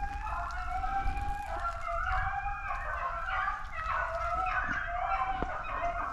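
A pack of beagles baying together, several dogs giving long, drawn-out overlapping calls: the hounds are on a rabbit's scent trail.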